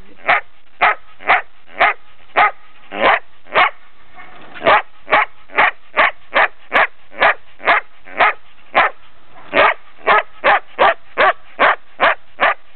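Ten-month-old Belgian shepherd dog barking over and over, about two barks a second, with one short pause about four seconds in.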